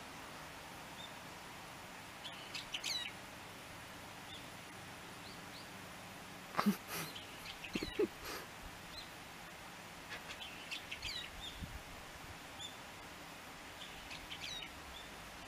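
Small birds chirping on and off over a faint steady hiss, with a brief louder, sharper sound about six and a half seconds in.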